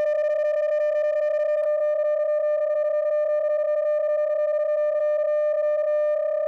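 PSK31 amateur-radio data signal: a single steady mid-pitched tone with faint overtones, slightly fluttering in level, carrying a typed text phrase.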